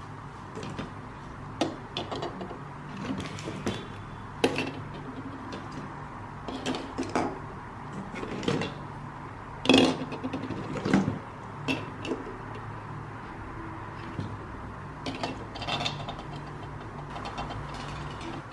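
Christmas decorations being handled: irregular light clinks, taps and knocks, with a few sharper knocks about five and ten seconds in, over a low steady room hum.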